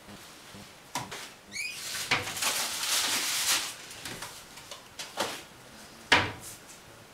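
Kitchen cupboard being rummaged through: a knock, a short rising squeak, a couple of seconds of rustling, then a few more knocks, the loudest a sharp knock about six seconds in.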